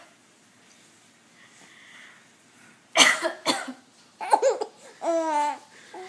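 A woman coughs twice in quick succession about three seconds in, and a three-month-old baby answers with laughter: short laughs, then one longer drawn-out laugh.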